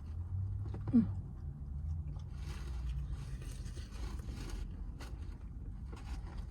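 Close-up chewing of buttery bread, with a brief falling hum about a second in. From about two and a half to four and a half seconds in there is a scraping rustle, over a low steady rumble inside the car.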